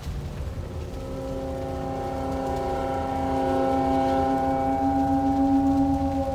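Low rumbling noise, with a sustained chord of several held tones fading in about a second in and swelling steadily louder, like a dark soundtrack drone.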